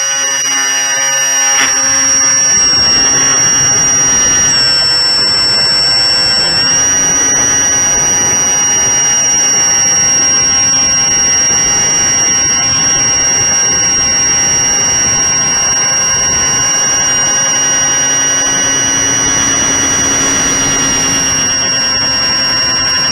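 Electric motor and propeller of an FPV model glider running at steady high power during the climb: a loud, high-pitched whine over wind rush, through the onboard camera's microphone. The pitch dips slightly a few seconds in, then holds steady.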